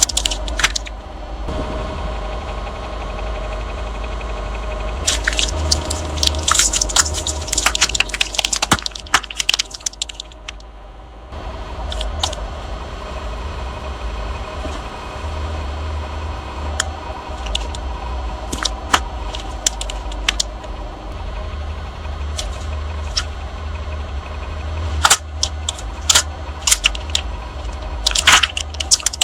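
Car engine running low and steady while objects crunch and crackle under its tyres, in two long bursts of sharp snapping: one a few seconds in and one near the end.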